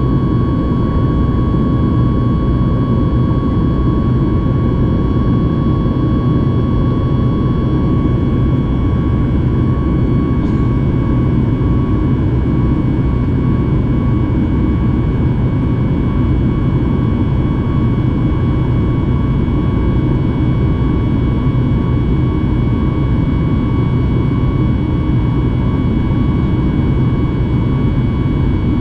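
A Boeing 737 MAX 8's CFM LEAP-1B turbofan engines heard from inside the cabin in the climb after takeoff: a steady roar with a steady high whine on top.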